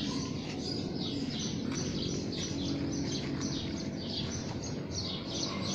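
Small birds chirping over and over, short falling chirps a few times a second, over steady low background noise.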